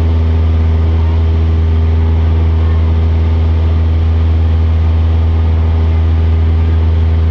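Cessna 172's piston engine and propeller running steadily in flight, a loud, even drone heard from inside the cabin.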